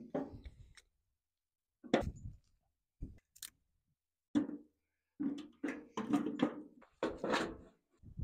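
Wood and steel knocking at a rusty steel chiminea as firewood is laid into the fire: scattered single knocks, then a quick run of clanks with a short metallic ring near the end.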